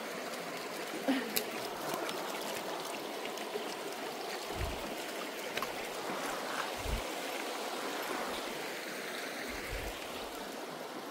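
Shallow creek running steadily over rocks and pebbles, with a few low thumps about halfway through and near the end.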